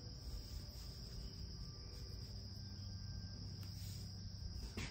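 Faint, steady high-pitched insect chirring, unbroken throughout, over a low background hum.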